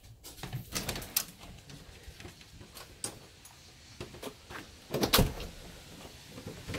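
A door being opened and handled, with clicks and knocks about a second in and a loud thump about five seconds in.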